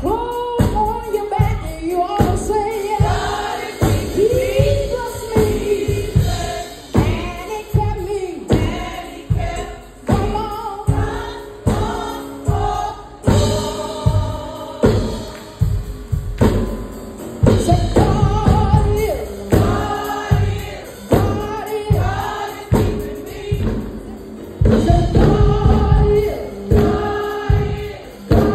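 Live gospel singing by a small group of voices with electronic keyboard accompaniment and a steady beat.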